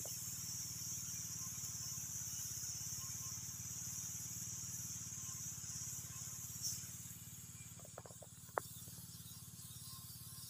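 Small engine of a motorized pesticide sprayer pump running steadily at a distance, a low even drone. Over it is a steady high hiss that fades about seven seconds in, with a few faint ticks and one sharp tick soon after.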